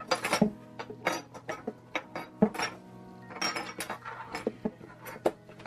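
Scattered light clicks and clinks of small metal enamel pins and their little boxes being handled on a tabletop, with soft background music underneath.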